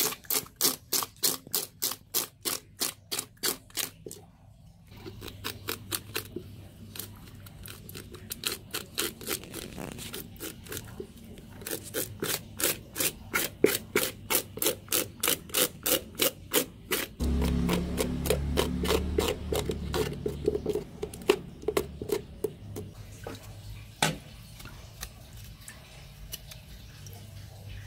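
Knife blade scraping charred scales off python skin on a wooden cutting board, in quick repeated strokes about four a second, with a short break about four seconds in. A few seconds of low rumble come a little past the middle, and the scraping is fainter near the end.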